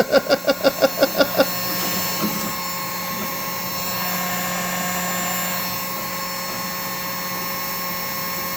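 Heat gun running steadily, its fan motor whirring and blowing hot air. In the first second and a half a louder rapid pulsing, about five beats a second, sounds over it.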